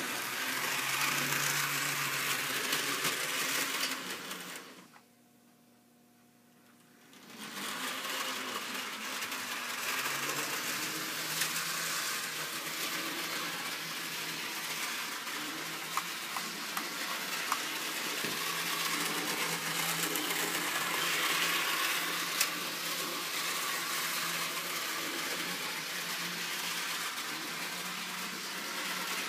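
Bachmann Thomas the Tank Engine model locomotive running on its track with a steady electric whir and hum. The sound cuts out for about two and a half seconds about five seconds in, then starts up again.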